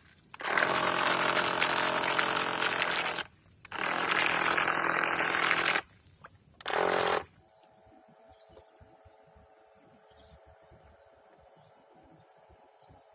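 A small boat motor runs hard in three bursts of a few seconds each, cutting in and out sharply. A faint steady hum with fast ticking follows.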